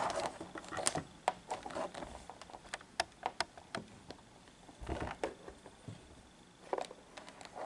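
A DT-9205A handheld digital multimeter being handled and its rotary range selector turned: a scattered run of small sharp clicks, with a few soft handling bumps, the loudest at the very start and about five seconds in.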